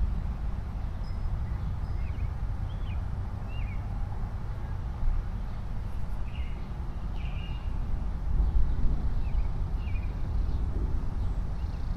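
Small birds chirping in short, scattered calls over a steady low rumble, which swells about eight seconds in.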